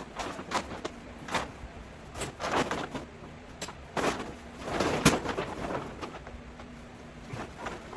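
Handling noises from assembling a grow tent by hand: irregular rustling and knocking, with a sharp click about five seconds in.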